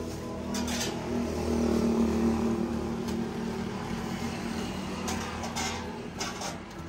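An engine running steadily, swelling louder about one to two seconds in, with a few short knocks.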